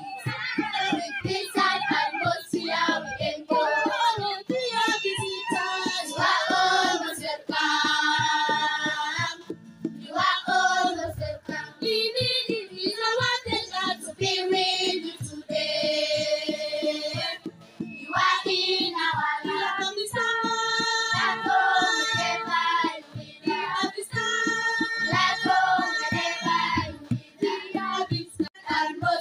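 A children's school choir singing a welcome song.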